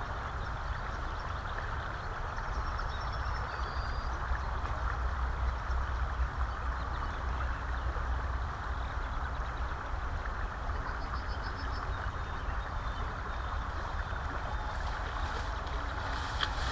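River water rushing steadily over a shallow riffle, with wind rumbling on the microphone. Faint high chirps come and go, and a few clicks and brushing noises come near the end.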